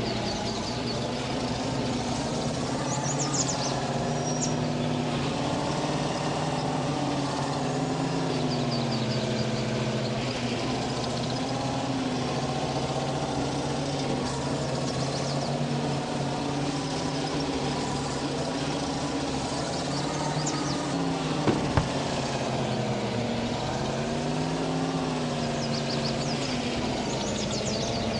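GAZ vehicle's engine idling steadily, its speed wavering slightly up and down a few times. Two short clicks come about three quarters of the way through.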